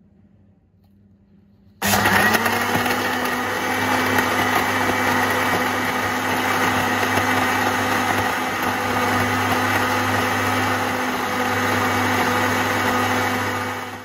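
Countertop blender switched on about two seconds in, its motor rising briefly in pitch as it spins up and then running steadily as it purées lime wedges in water. It cuts off suddenly near the end.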